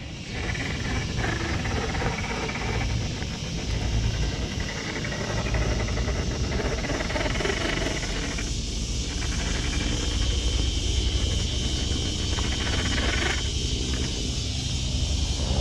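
Small electric RC rock crawler running over rocks and tree roots: motor and drivetrain running steadily, tires grinding and scrabbling on stone and bark, over a steady hiss.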